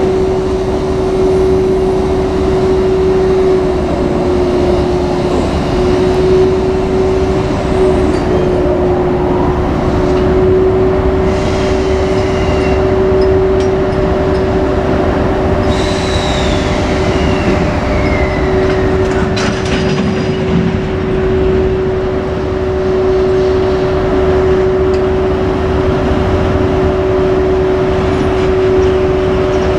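Freight train hauled by a JR Freight EF81 electric locomotive running, a loud continuous rumble with a steady low hum throughout. About halfway through, a high whine glides downward.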